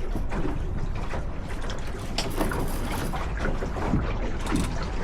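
Water slapping and lapping against a small sailboat's hull as it moves along, with wind rumbling on the microphone and scattered small knocks and clicks from the boat.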